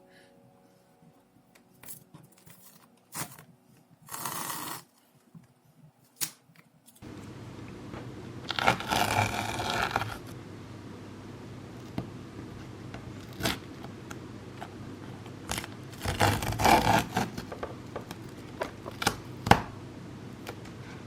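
Handling sounds at a work surface: a few sharp clicks, then a steady low room hum begins about seven seconds in. Over the hum come two longer scraping, rustling passes, about 9 and 17 seconds in, and more scattered clicks.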